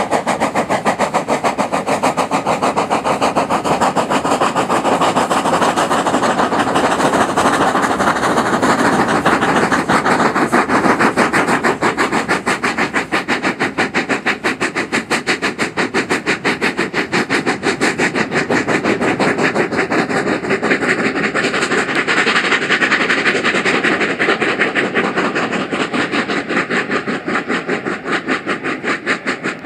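Two Bagnall 0-4-0 saddle-tank steam locomotives working a train together, exhausting hard in rapid, even chuffs. The beats fade over the last few seconds as the train draws away.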